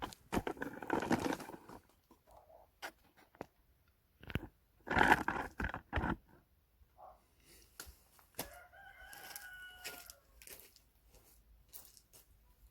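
A rooster crows once, about eight and a half seconds in, in one drawn-out call. Around it are short scraping bursts, the loudest about five seconds in, and scattered sharp knocks.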